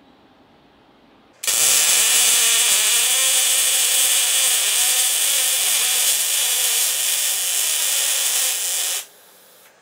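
Electric arc welding on steel: the arc strikes about a second and a half in and runs as a loud, steady hiss for about seven and a half seconds, then cuts off sharply as the weld on a steel tab is stopped.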